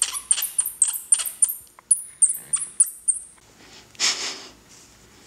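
Juvenile Florida bonneted bat squeaking: a rapid run of very high-pitched chirps, each sliding downward, about four a second, that stops about three and a half seconds in. A short hiss of noise follows about four seconds in.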